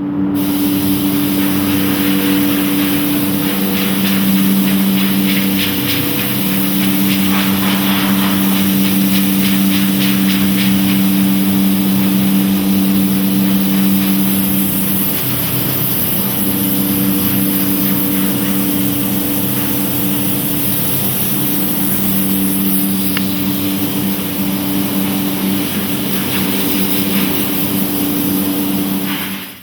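Loud, steady running of a motor-driven shop machine, a constant two-note hum over a bright hiss, with a brief dip about halfway through; it cuts in and out abruptly.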